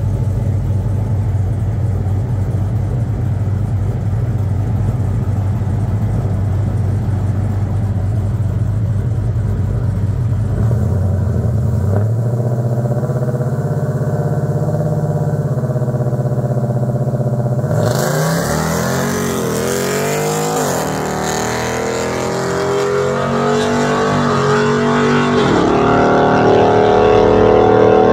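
Naturally aspirated Hemi V8 of a long-bed RAM pickup idling at the drag strip starting line, then held at higher revs for about six seconds before launching. After the launch it accelerates hard, the revs rising and dropping back at each upshift, twice.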